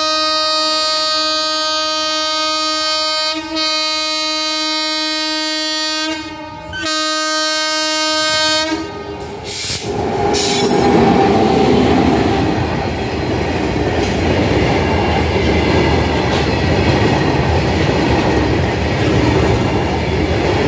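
WAG-9HC electric locomotive's horn sounding three long blasts, a chord of several steady tones, the last blast shortest. The goods train then passes close by with a loud, steady rumble of locomotive and wagons on the rails.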